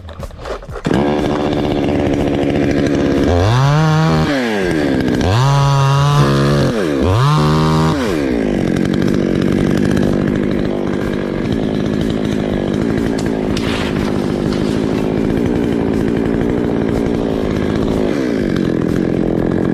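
A chainsaw starts up about a second in and is revved three times, its pitch rising and falling. It then runs steadily at high revs.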